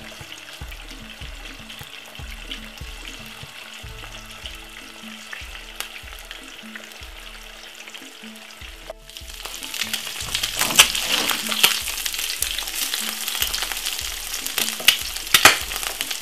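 Egg frying in a pan, sizzling steadily, with background music that has a steady bass beat underneath. About nine seconds in the sound cuts out for a moment, and the sizzling comes back louder with sharp crackles and pops.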